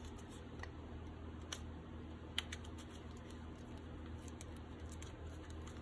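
Hands pressing and smoothing a glued paper butterfly onto a card on a cutting mat: faint paper rustling with a few light clicks and taps, the sharpest about two and a half seconds in, over a low steady hum.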